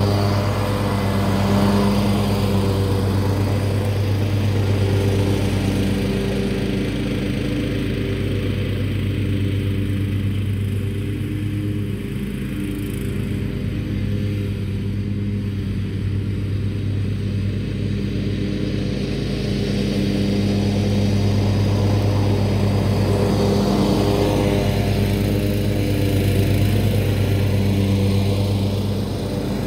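Zero-turn riding mower's engine running steadily with the blades engaged while mowing grass. It is nearer and a little louder at the start and again near the end as the mower comes back.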